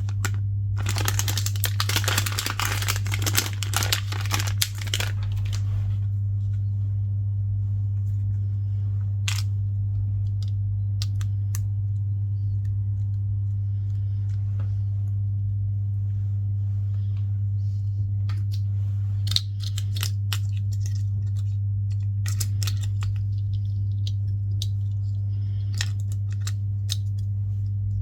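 Crinkling and rustling for about the first five seconds, then scattered small clicks and ticks from handling tiny phone parts and tools at a repair bench, over a steady low hum.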